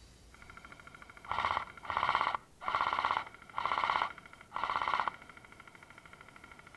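Electronic background music: a held synth tone with five evenly spaced, beeping pulses about a second apart, which then stop and leave the held tone.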